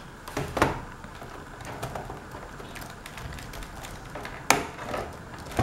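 A Toshiba Satellite C650-series laptop keyboard being pressed by hand into its bay in the palm rest: a few sharp plastic clicks and taps, about half a second in, near the end and once in between, over faint handling noise.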